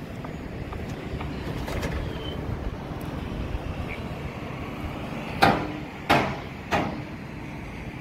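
Steady low rumble of a truck-mounted concrete pump's engine running, with three short, loud bangs about two-thirds of the way through, roughly half a second apart.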